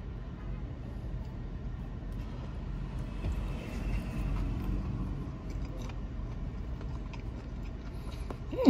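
Steady low rumble of motor traffic, heard from inside a parked car, swelling a little in the middle. Near the end comes a short hummed vocal sound that falls in pitch.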